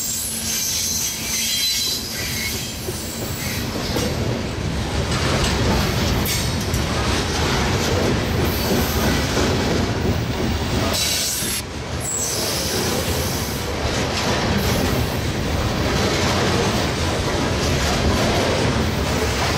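Coal train hopper cars rolling past at close range: steel wheels clattering on the rail with a steady heavy rumble. A brief high wheel squeal comes partway through.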